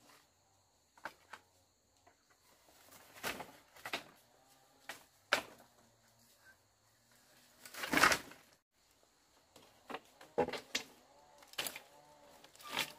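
Irregular knocks and strikes of hand-tool work, a few seconds apart, the heaviest a longer thud about eight seconds in. Faint bird calls between the strikes near the end.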